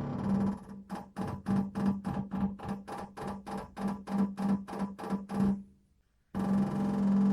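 Heating radiator buzzing with a steady low hum that breaks into rapid pulsing, about three or four pulses a second, then stops briefly and hums steadily again. The uploader puts the noise down to the supply and return pipes being connected the wrong way round.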